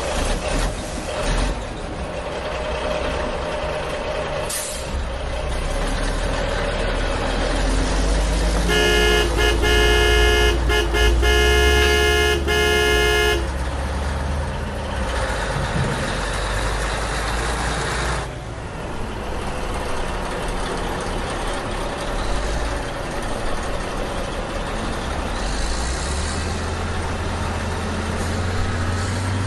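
A recorded truck sound laid over the pictures: an engine running with a steady low rumble, and near the middle a horn sounding a quick run of toots for about four seconds.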